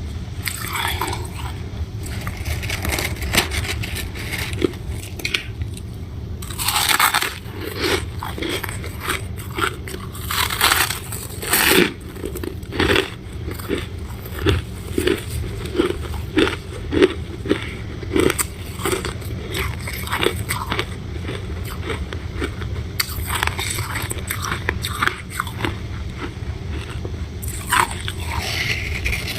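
Someone biting into and chewing a crunchy chunk of freezer frost: sharp crunching bites, then a run of chews about once a second, over a steady low hum.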